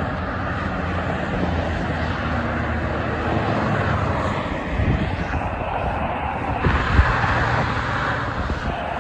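Steady roar of highway traffic, tyres and engines of passing cars and pickup trucks on wet, slushy pavement, with a low thump about seven seconds in.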